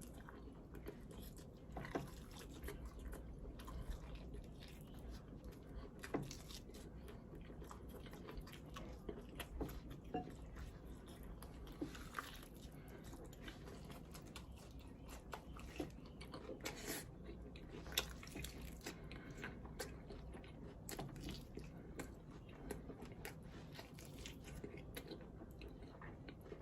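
A person chewing and biting into sauce-coated fried chicken, with scattered soft crunches and wet mouth sounds at an irregular pace.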